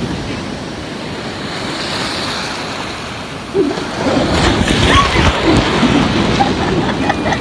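Sea surf washing and breaking around the wading phone microphone, a steady rush of foaming water that grows louder about halfway through as a wave comes in.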